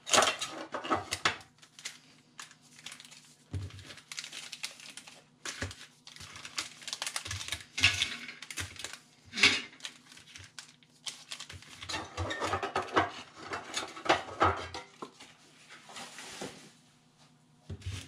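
Foil Pokémon TCG booster packs and tin packaging being handled and set down on a wooden desk: irregular crinkling of the foil wrappers with light knocks and clicks.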